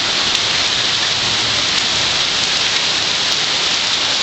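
Heavy rain mixed with hail pouring down, a dense steady hiss of drops and hailstones hitting the ground.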